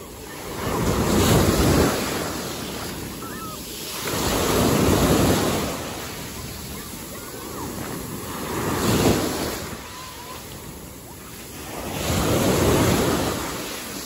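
Sea waves breaking on the beach and washing back, in four surges about every three and a half to four seconds.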